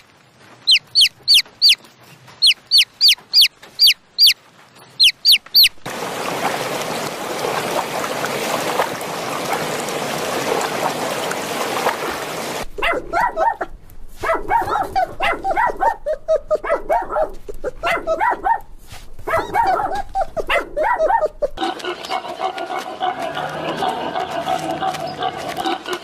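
A chick peeping in runs of quick, high, falling peeps for about six seconds, followed by a stretch of even hiss. Then puppies yip and whine in short, quick cries, giving way near the end to a steadier sound with held tones.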